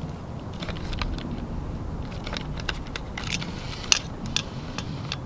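Hands handling a camera and pressing its buttons: scattered small clicks, a couple of sharper ones about four seconds in, over a low outdoor rumble of wind on the microphone.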